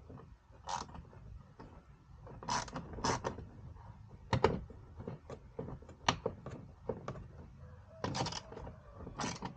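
Hand tool clicking and scraping as a mounting screw is worked into a Jeep fender, in a string of short, irregular bursts.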